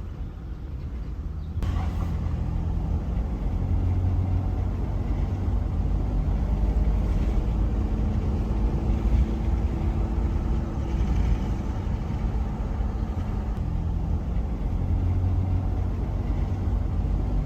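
Steady low rumble of a car being driven, engine and road noise as heard inside the cabin; it gets louder about a second and a half in.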